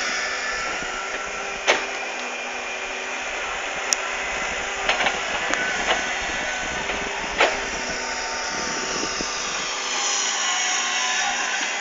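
Mini excavator running with a steady engine hum, broken by several short sharp knocks.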